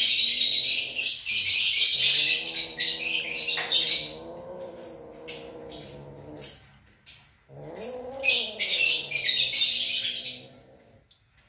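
A Persian cat yowling while mating: a long, low, wavering cry held for several seconds that rises and falls in pitch near the end. Small birds chirp busily over it and stop just before the cry ends.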